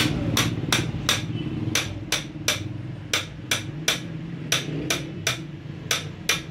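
Hammer striking metal in a steady rhythm: groups of three sharp blows about a third of a second apart, each group followed by a short pause. A low hum sits under the first couple of seconds and fades.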